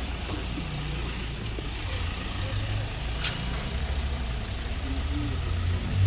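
Street ambience: a steady low rumble of idling cars and passing traffic, with faint voices of people standing about and one short click about three seconds in.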